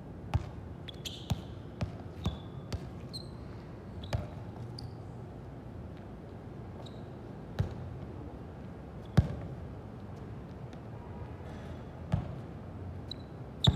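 Sparring bout: about ten sharp thuds and slaps at irregular intervals, the loudest about nine seconds in, with short high squeaks in between, like shoes on a hard floor.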